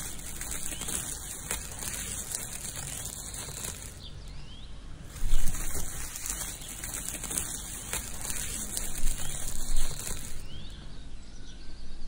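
Handling noise from a homemade toy cement mixer: light rustling and knocks as a small piece is put into its plastic drum, with a sharper knock about five seconds in and a few more near the end.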